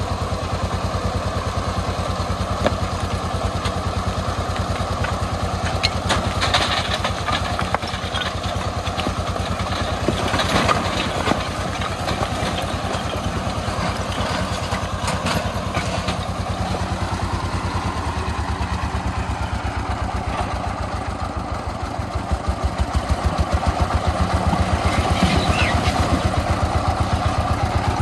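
Single-cylinder diesel engine of a công nông three-wheeled dump truck running with an even, rapid beat, with a few clatters in the first half. The engine grows louder about two-thirds of the way through.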